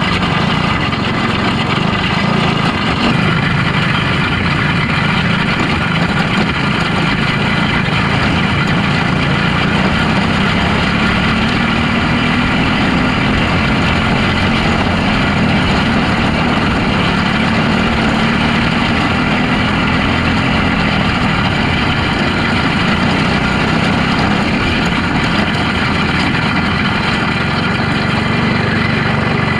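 Micro sprint car's engine running steadily at low speed, close to the onboard microphone, without revving.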